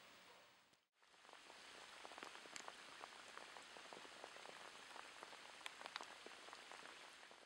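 Rain falling on open water: a soft, steady patter of many small drops hitting the surface. The sound briefly cuts out about a second in, then resumes.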